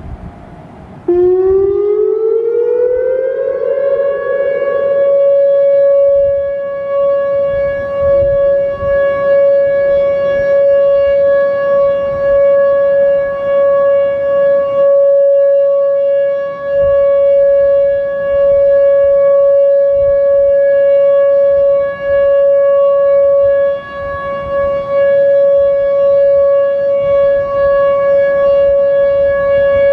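Whelen WPS-2900-series electronic outdoor warning sirens sounding the steady alert signal: the tone starts about a second in, glides up over two or three seconds, then holds one steady pitch, swelling and dipping slightly in loudness. A fainter rising tone joins about eight seconds in.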